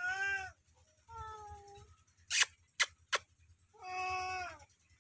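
Domestic cat meowing three times, each meow a drawn-out call that arches in pitch, the middle one fainter and lower. A few sharp clicks fall between the second and third meows.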